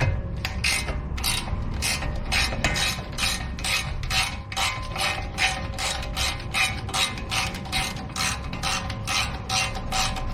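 Ratchet wrench clicking in a steady, even rhythm, about three clicks a second.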